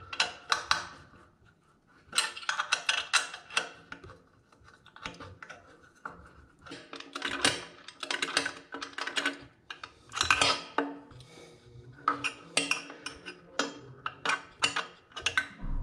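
Hex key clinking and scraping against the mounting screws and metal housing of a thermostatic shower mixer as the screws are tightened: irregular runs of light metallic clicks with short pauses.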